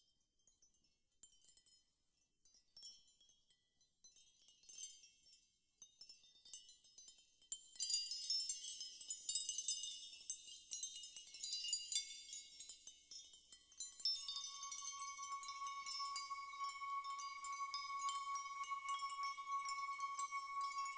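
Ambient meditation music of wind-chime tinkling. The chimes are sparse and faint at first and grow into a dense shimmer about eight seconds in. A held high tone enters beneath them about halfway through.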